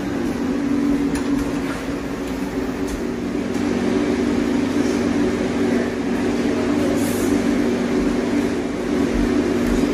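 A steady, low mechanical hum with a few constant tones.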